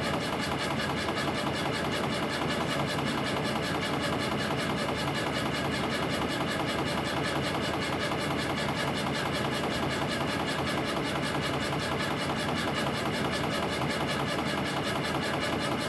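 CNC compression spring coiling machine (CF-308) running at production speed on 0.4 mm wire, about 300 springs a minute: a steady, fast, even mechanical chatter of wire feeding, coiling and cutting, with a spring length-checking unit working alongside.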